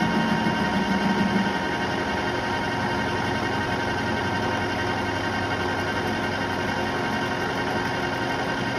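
Metal lathe running, spinning a rectangular workpiece while a turning tool faces it: a steady mechanical hum with constant whining tones. A louder low hum drops away about a second and a half in.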